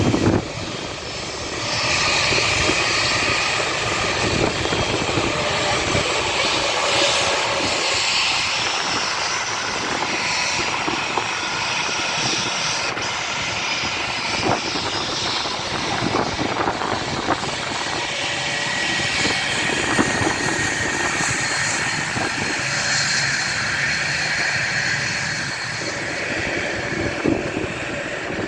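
Airbus A321 turbofan engines running steadily, a broad rush of jet noise with a high whine over it, for a takeoff.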